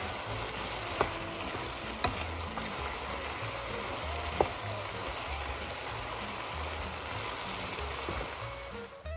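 Meat sizzling steadily in hot fat, with a few sharp knocks about one, two and four seconds in.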